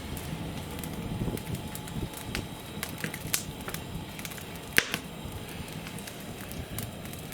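Wood campfire crackling, with scattered sharp pops over a low steady rush; two pops, about three and a half and five seconds in, stand out.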